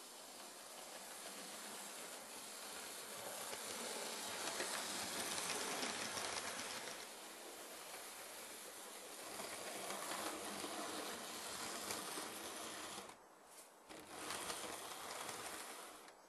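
Model railway train running along the track: a steady whirring hiss with faint rapid ticking, growing louder toward the middle, easing, then dropping away suddenly near the end.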